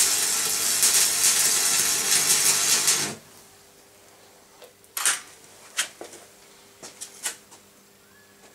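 Electric arc welding: the arc crackles and hisses steadily with a low mains-frequency hum for about three seconds, then cuts off suddenly. After that, a few light, sharp taps or clicks.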